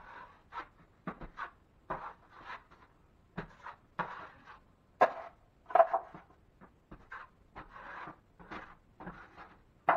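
Steel drywall knife scraping joint compound against the edge of a mud pan and spreading it on the ceiling: a run of short, irregular scrapes and clicks, with the sharpest knocks about five and six seconds in.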